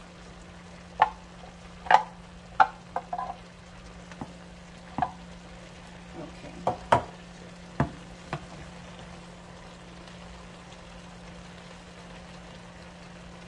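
A utensil clinking and scraping against a skillet while vegetables are stirred, about ten sharp knocks in the first eight seconds or so, over a faint steady sizzle.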